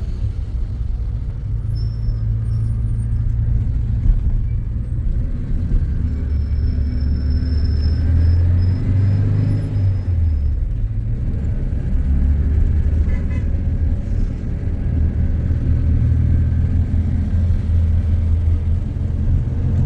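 Steady low vehicle rumble, like a car's engine and road noise.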